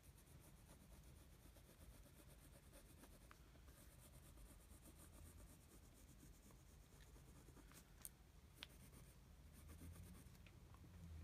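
Faint scratching of a pen drawing lines on notebook paper, in short stretches of strokes, with two small clicks about eight seconds in.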